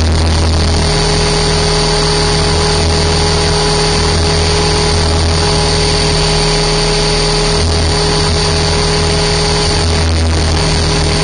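Align T-Rex 550 electric RC helicopter in flight, heard from a camera mounted on its own airframe. Its motor and rotor give a steady high whine over a low drone that swells and dips.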